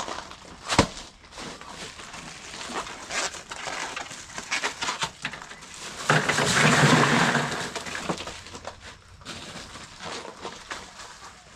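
A knife working through a giant trevally (ulua) carcass: scattered clicks and cracks as the blade cuts flesh and bone, with a louder rasping stretch about six seconds in.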